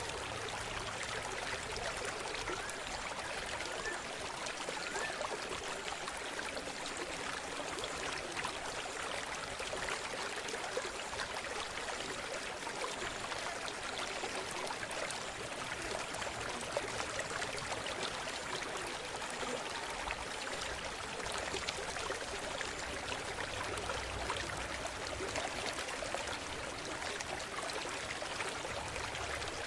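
Water of a river or stream running and trickling, a steady even rush with fine splashing detail and no change in level.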